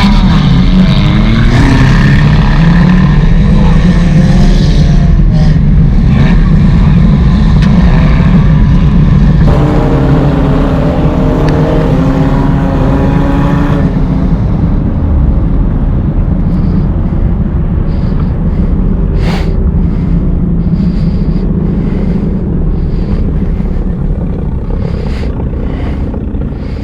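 Race car engine running hard at race pace, its pitch rising and falling with the throttle. A few brief sharp knocks come in the second half.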